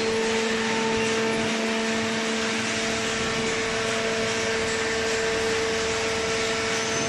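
Hydraulic baler's pump running, a steady hum and whine.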